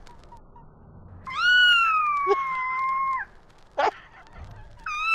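A cat meowing. It gives one long drawn-out meow that rises and then slowly falls, then a short sharp chirp, and starts another meow near the end.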